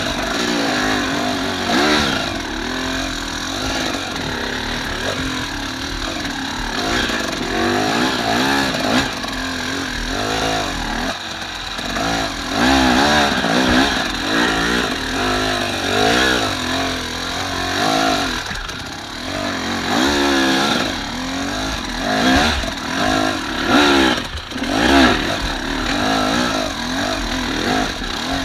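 Off-road enduro motorcycle engine being ridden hard, its pitch rising and falling again and again as the throttle is opened and closed.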